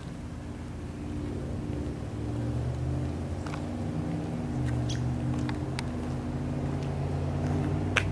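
A low, steady motor hum that grows louder over the first few seconds and shifts slightly in pitch, with a few short high chirps and a sharp click near the end.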